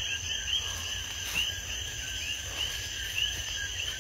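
Night chorus of coquí frogs, short rising chirps repeating several times a second, over a steady high insect trill.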